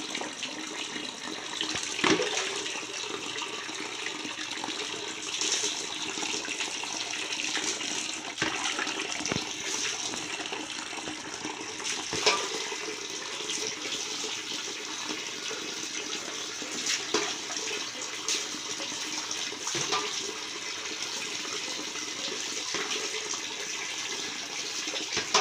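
Steady running and splashing water as a wet dog is rinsed with water poured from a plastic dipper, with a few short, sharper splashes or knocks standing out now and then.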